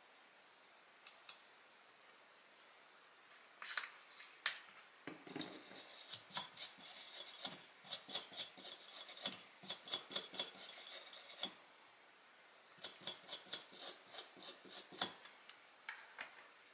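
Quick clicks and clatter of small hard objects being handled, in two runs of several seconds with a short pause between.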